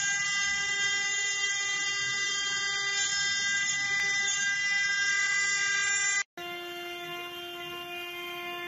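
CNC stone carving machine's spindle running steadily with its engraving bit cutting a stone column turned on the rotary axis: a steady whine of several high tones. About six seconds in it cuts off for a moment and returns quieter, with a lower steady tone.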